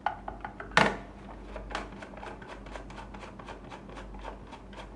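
Handling noise from a small plastic meter case being worked on with a screwdriver to remove its case screws. A few light clicks, a sharp knock just under a second in, then a fairly even run of faint ticks.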